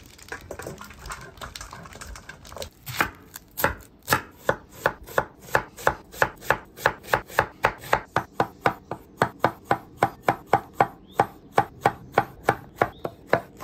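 Chef's knife slicing red onion and jalapeños on a wooden cutting board: a steady run of knocks on the board, starting about three seconds in at about two a second and quickening to about three a second in the second half.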